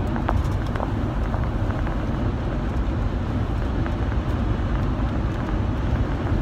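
Steady road and engine rumble inside a moving car's cabin, with a few faint ticks.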